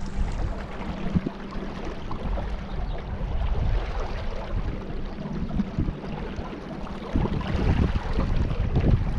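Boat under way on the water: a steady rush of water and wind with a low hum underneath and scattered small knocks.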